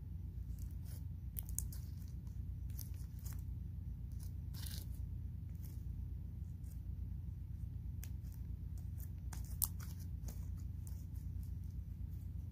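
Scattered small clicks and crackles close to the microphone, one sharp tick a little after halfway, over a steady low hum.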